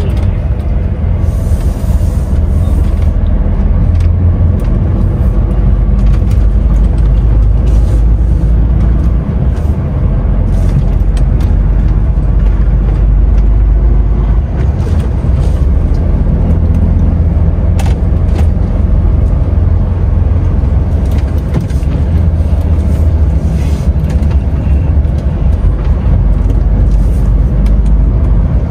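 DAF XF 510 lorry's PACCAR MX-13 six-cylinder diesel engine running as the truck drives, a steady low drone.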